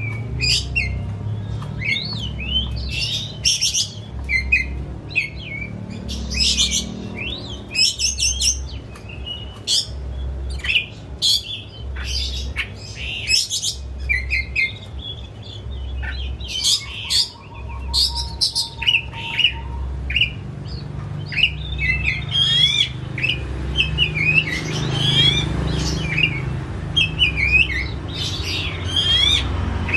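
Oriental magpie-robin singing a fast, varied stream of chirps, whistles and sweeping notes, the full-voiced song of an excited bird. A low throb pulses underneath about once a second.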